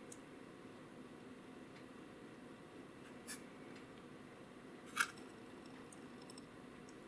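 Two short clicks of the small plastic and metal parts of a flashlight push-button switch being handled, a soft one about three seconds in and a sharper one about five seconds in, over a quiet room hum.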